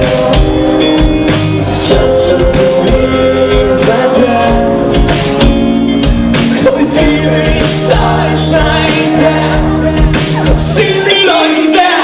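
Rock band playing live: electric guitar, bass guitar, drums and saxophone, with singing. The bass and drums drop out briefly near the end.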